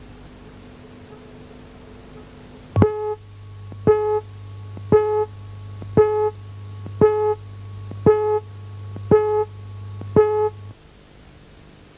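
Eight short electronic beeps, one each second, each a sharp-edged buzzy tone, with a steady low hum under them that cuts off just after the last beep: line-up countdown beeps on a broadcast videotape over colour bars.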